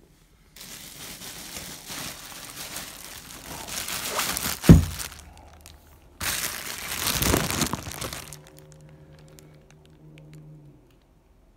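Plastic packaging around a beauty dish crinkling as it is unwrapped, in two stretches with a short pause between. About halfway through there is one sharp knock, the loudest sound.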